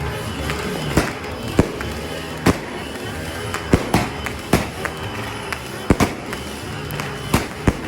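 A 16-shot consumer fireworks cake firing: about ten sharp bangs at uneven intervals, some in quick pairs, as its shells go off.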